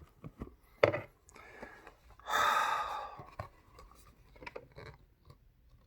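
A man's long breathy exhale, with a few light clicks of handling around it.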